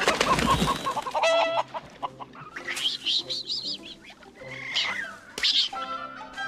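Raccoons chittering and squealing in short, wavering high calls, after the tail of a crash dies away in the first second. Music comes in near the end.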